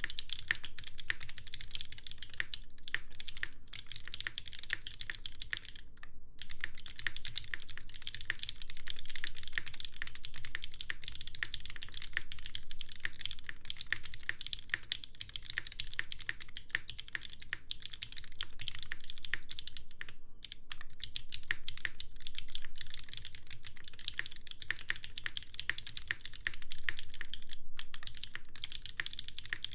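Fast continuous typing on a custom mechanical keyboard: a Qneko with polycarbonate case, aluminium plate on a 40A gummy O-ring mount, lubed linear Cherry MX Red switches and GMK doubleshot ABS keycaps. Many keystrokes a second, broken by a few brief pauses.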